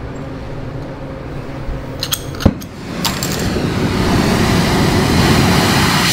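Oxy-acetylene torch with a rosebud heating tip being lit: a few sharp clicks about two seconds in and a pop as the gas catches, then the steady rushing of the flame, which grows louder and holds.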